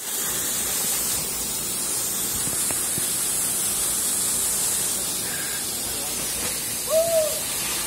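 Steady rushing hiss of grain pouring through the elevator's chute and delivery pipe into sacks. About seven seconds in, a brief rising-and-falling sound stands out twice over it.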